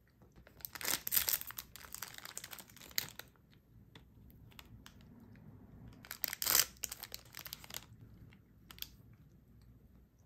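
Plastic wrappers of individually packed chocolate cookies crinkling as they are handled, in two bursts of rustling, about a second in and again about six seconds in, with a few light crackles afterwards.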